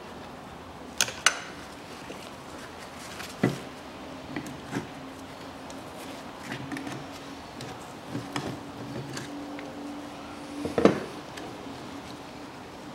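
Pliers and hose fittings being handled while power-steering hoses are taken off: a few separate sharp clicks and knocks, the loudest near the end. A faint steady hum runs through the middle.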